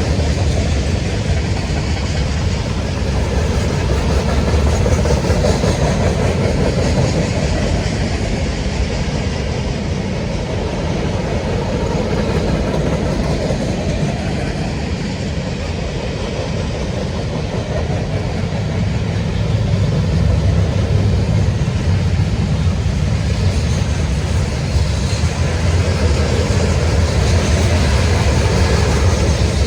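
Freight train rolling past, a steady rumble of wheels on the rails that eases slightly midway and builds again near the end.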